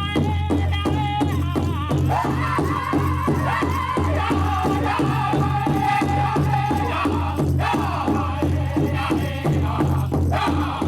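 Powwow drum group performing a fancy dance contest song: a big drum struck in a steady, even beat, with singers chanting high-pitched in unison over it.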